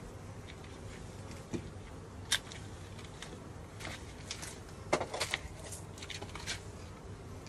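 Scattered light clicks and knocks from beehive equipment being handled during a hive changeover, with a sharp click a little over two seconds in and a cluster of knocks around five seconds in.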